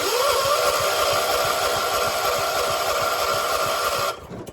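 John Deere 300 lawn tractor's starter motor cranking the engine with a whine and rapid uneven pulses for about four seconds without it catching, then stopping abruptly. The owner puts the failed start down to a dead battery.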